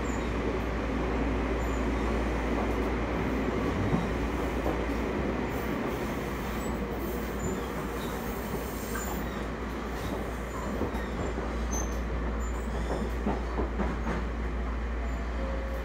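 Running noise inside a Toyama Chiho Railway 20020-series (ex-Seibu New Red Arrow) passenger car on the move. It is a steady rumble of wheels and running gear, reused from the original Red Arrow, with scattered clicks and knocks.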